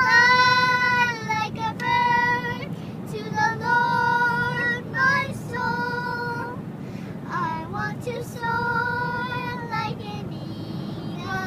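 A high, childlike singing voice holding long, steady notes with short breaks between them and a few sliding notes, over a low steady rumble.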